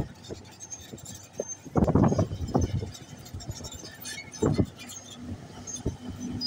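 Komatsu bulldozer at work: machinery rumble with several loud, irregular bursts, the loudest about two seconds in, and faint high squeaks.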